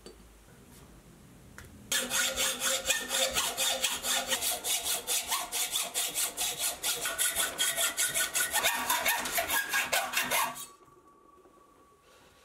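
Hacksaw cutting through a solid round steel bar held in a vise: quick, even rasping strokes that start about two seconds in and stop near the end as the piece is cut off.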